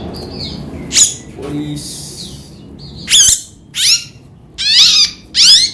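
Cucak jenggot (grey-cheeked bulbul) giving loud, harsh squawks that sweep downward, five of them from about a second in, with soft chirps from other birds underneath.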